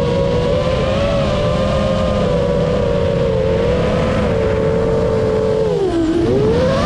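A vehicle engine running steadily under a low rumble. Its pitch wavers, then dips and rises again near the end, as the revs drop and pick back up.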